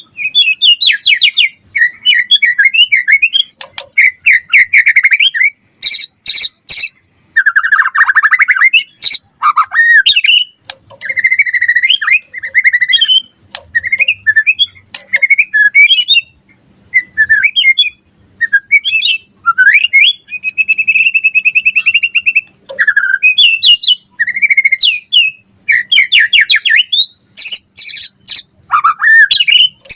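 White-rumped shama singing loudly: fast, varied phrases of clear whistles, rapid trills, pitch glides and harsh buzzy notes, with short pauses between them.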